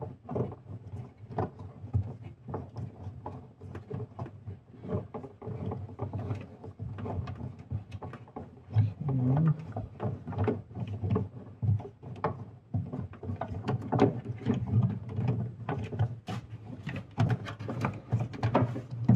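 Irregular clicks, knocks and rubbing of plastic and rubber as an LED headlight bulb and its rubber dust seal are worked into the back of a 2009 Subaru Forester's headlight housing, the bulb being twisted and pushed to lock it into the socket.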